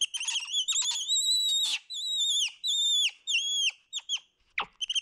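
Capuchin monkey giving a rapid run of high, whistle-like chirps, each call dropping in pitch at its end, broken by short pauses.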